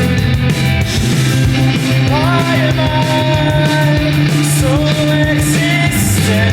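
Loud, dense rock song with electric guitars, with sliding notes about two seconds in and again near five seconds.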